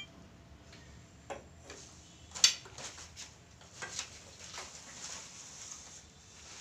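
A few light clicks and knocks, the sharpest about two and a half seconds in, from a metal snake-catching tong being handled against a metal frame.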